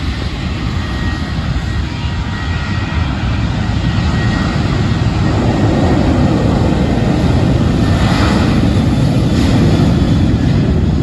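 Boeing 737 twin jet engines at takeoff power: a heavy, noisy rumble that grows louder from about five seconds in as the airliner takes off.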